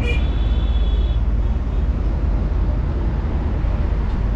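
A steady low rumble, with a faint high ringing tone at the start that fades out within about a second.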